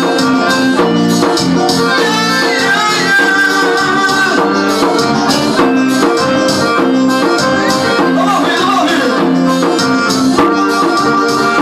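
Live forró music on an electronic keyboard: an instrumental passage with the keyboard's melody over a steady rhythm track with shaker and drum strokes.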